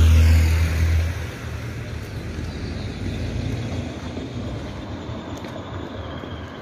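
A heavy vehicle's engine running close by, a loud low hum that dies away about a second in, leaving steady street traffic noise.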